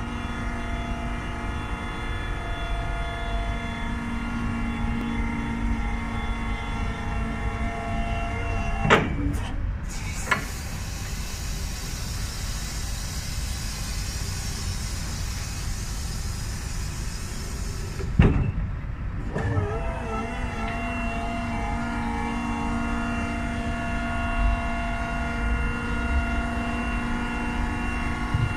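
Hydraulic pump motor of an 8-ton electric forklift whining steadily as the mast lifts an 8-ton test load. It cuts out with a clunk about nine seconds in, leaving a steady hiss for several seconds. It starts again with a wavering pitch about halfway through and then runs steadily.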